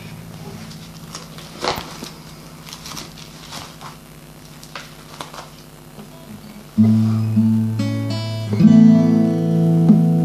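Acoustic guitar: a chord fades away under small clicks and handling noises. About seven seconds in a low chord is struck, a few notes are picked, and just before nine seconds another strum rings on.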